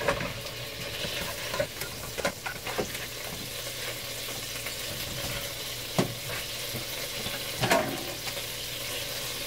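Rendered pork-sausage fat sizzling steadily in a skillet, with a few sharp clicks and knocks from the slotted spoon and the pan or baking sheet, the loudest about six seconds in and shortly before the end.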